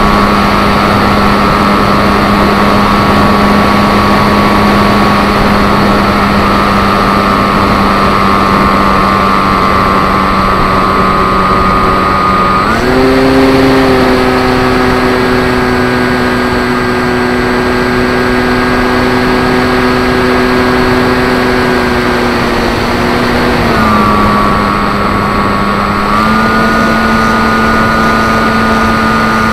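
Electric 3542 brushless motor and propeller of a Zeta Phantom FX-61 flying wing in flight, heard through its on-board camera as a steady droning hum. Its pitch steps up a little under halfway through as the throttle is raised, drops back about ten seconds later, then rises slightly again near the end.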